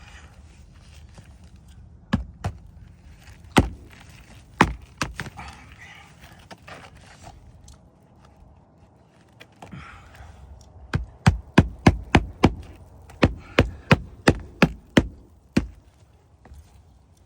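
Hammer driving a roofing nail under a lifted shingle: a few spaced blows, then a quick run of about fifteen strikes, roughly three a second, in the second half.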